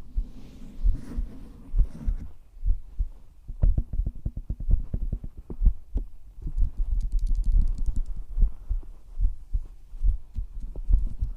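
A person's own heartbeat picked up close against the chest: slow, steady, low double thumps about once a second. A run of quick small clicks comes in over the beat a few seconds in.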